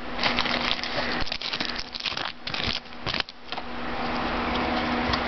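Crinkling and crackling of a foil trading-card pack wrapper being handled and opened, in irregular bursts for about three and a half seconds, then only a steady low room hum.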